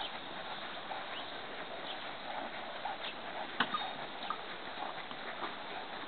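Quarter Horse mare's hooves landing on soft arena dirt at a walk: faint, irregular footfalls over a steady hiss, with one sharper click about three and a half seconds in.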